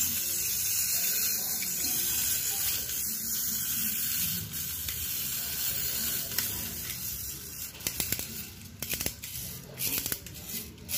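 Tin wind-up drumming robot running: its clockwork whirs and buzzes steadily while the sticks rattle on the little tin drum. In the last few seconds this gives way to separate clicks and taps.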